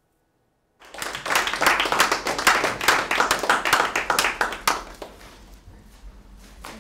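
Audience applauding: a round of clapping that starts about a second in and fades out around five seconds in.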